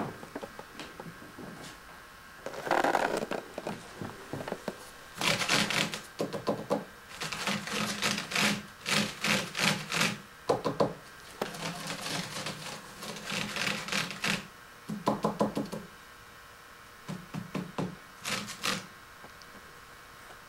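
A kitten's paws scampering and skidding across a hardwood floor: rapid bursts of light knocks and clatters, several a second, coming in runs with short pauses between them.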